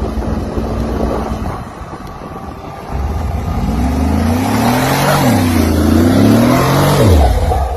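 Car engine revving up and down as it is driven off-road. After about three seconds of rushing noise, the revs climb, dip, climb again and fall away near the end.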